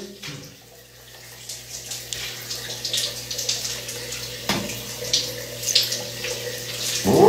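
Water pouring from an overhead rain shower head and splashing onto a person's head and face: a steady, uneven spatter of running water.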